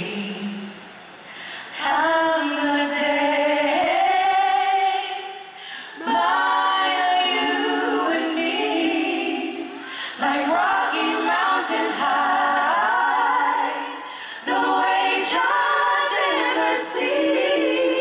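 Several female voices singing together in close harmony with no instruments under them, a choir-like passage amplified live, in four long phrases with short breaks between.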